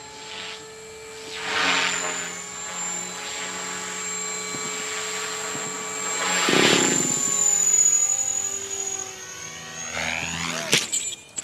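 Align T-Rex 500 electric RC helicopter in flight: a steady high motor and gear whine under the rotor blade noise, which swells loudly twice as it passes close. The sound breaks off with a few sharp clicks near the end.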